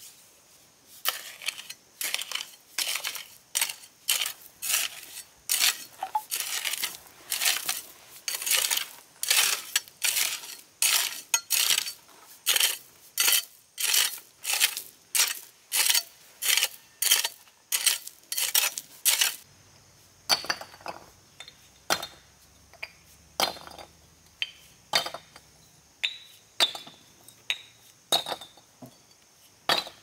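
A metal hoe scraping and chopping through a pile of sand and gravel, mixing it for concrete: regular gritty strokes, about one and a half a second. From about two-thirds of the way through, the strokes give way to sparser, sharper clinks about a second apart.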